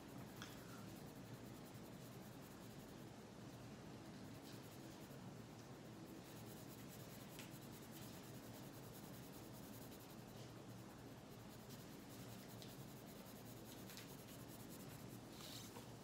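Red colored pencil scratching on paper in continuous shading strokes, faint.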